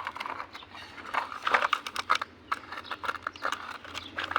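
Irregular light clicks and clatter of small hard plastic toys being handled and set down.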